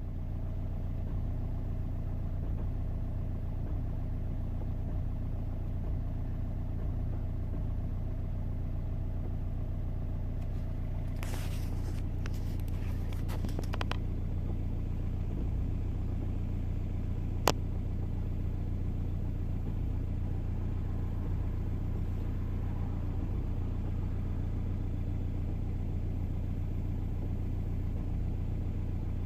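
Audi 1.9 TDI PD130 four-cylinder pumpe-düse diesel engine idling with a steady low hum. A cluster of faint clicks comes about eleven to fourteen seconds in, and one sharp click a little past halfway.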